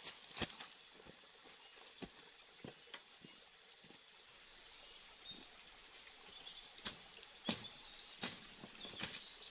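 Footsteps in rubber boots through leaf litter and undergrowth on a forest floor, with irregular crackles and snaps of leaves and twigs. Faint high bird chirps come in from about halfway through.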